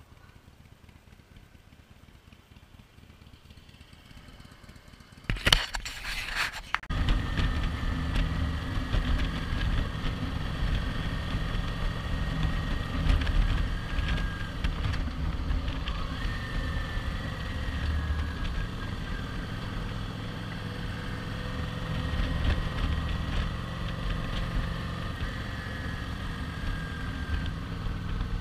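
Kawasaki Vulcan 900 LT's V-twin engine running steadily with the motorcycle under way on the road, heard from the rider's seat. A short loud clattering burst comes about five seconds in, and the engine sound sets in about seven seconds in.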